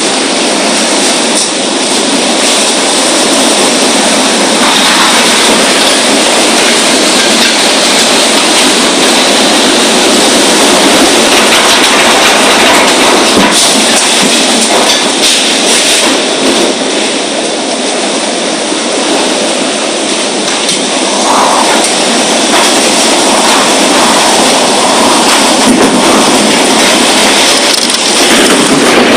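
Strong storm wind: a loud, steady rushing noise that swells and eases a little but never lets up.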